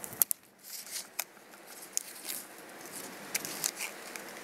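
Blue painter's tape being peeled off the roof around a freshly caulked vent and crumpled in the hand: scattered sharp crinkles and ticks.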